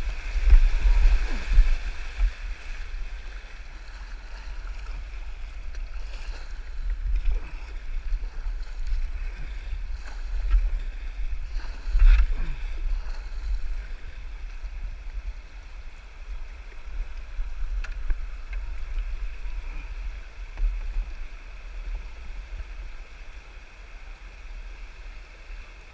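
Rushing water of a shallow rocky river riffle around a kayak, with paddle strokes splashing and a steady low rumble underneath; loudest near the start and again about twelve seconds in, easing off toward the end.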